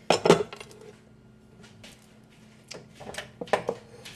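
A glass pot lid clinks down onto a small frying pan, the loudest sound. Then come a few lighter knocks and clicks as the pans are moved about on a wooden cutting board.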